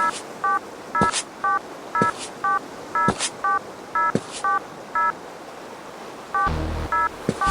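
Japanese railroad crossing warning bell ringing 'kan-kan', about two strikes a second alternating between two pitches. It stops about five seconds in. Near the end a low rumble starts and the bell rings again.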